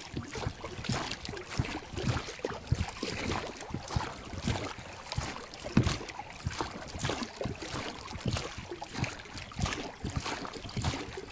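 Oars of an inflatable PVC rowing boat dipping and splashing in the water, with water rushing along the hull; an irregular run of splashes and sloshes.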